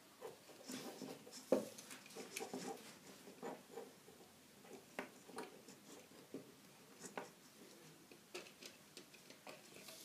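Faint scattered clicks, taps and rustles of wires being handled and pushed into the terminals of a plastic circuit breaker.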